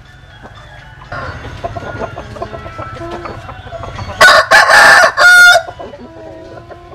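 A flock of crossbred Vietnamese-American butterfly chickens clucking and calling, with one loud rooster crow, lasting about a second and a half, a little past four seconds in.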